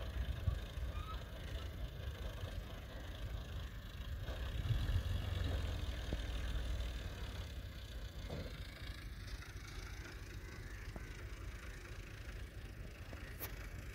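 Engines of a tractor and a backhoe loader running at a distance, a low rumble that swells about four seconds in and fades after about eight seconds. A sharp click near the end.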